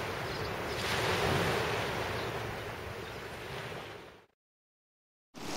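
Small waves breaking and washing up a pebble beach in a steady wash of surf that swells about a second in and then fades. About four seconds in the sound cuts out to complete silence for about a second.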